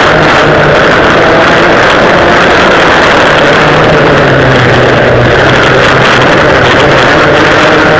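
Vintage twin-rear-engine racing karts running hard, heard from onboard the kart: a loud, steady engine drone with other karts' engines close by.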